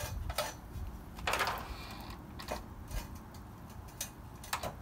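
Handling noises at a miter saw as a length of rusty steel bar is positioned for cutting: a few light clicks and knocks, and one longer scrape of metal about a second in. The saw motor is not running.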